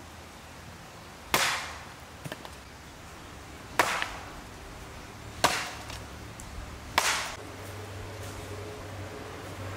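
Four sharp chopping blows, spaced about one and a half seconds apart.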